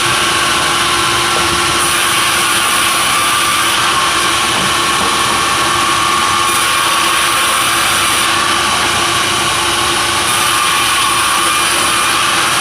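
Sawmill machinery running steadily and loudly, with a constant whine over the noise.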